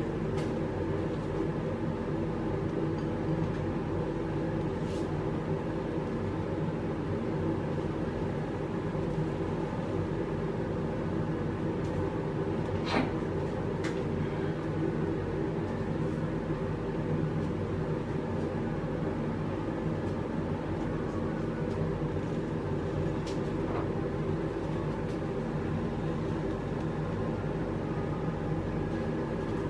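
Egg-in-toast frying slowly in oil in a nonstick pan over a low gas flame: a steady low rumble with a few small pops and ticks, the clearest about 13 seconds in.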